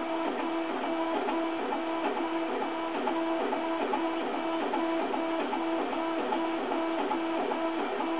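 Stepper motors of a home-built H-bot 3D printer whining as they drive the carriage through a dry-run motion test, the tone switching pitch about twice a second as the moves change.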